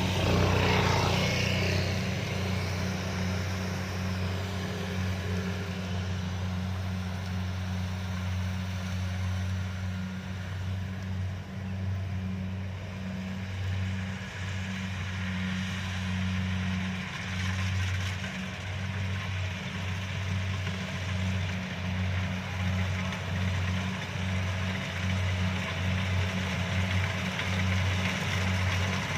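Kubota DC-70 combine harvester running steadily: a low engine drone with a second hum above it, wavering slightly in strength.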